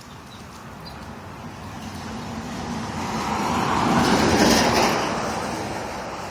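A vehicle passing by: its noise swells to a peak about four seconds in, then fades away.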